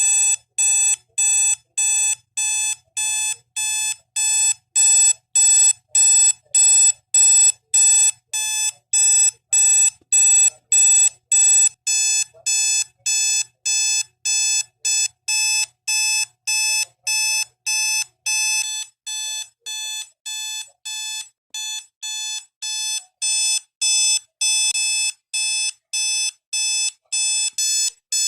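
SHARP SPC051 digital alarm clock sounding its alarm: a steady train of short, shrill electronic beeps, about two a second, without a break.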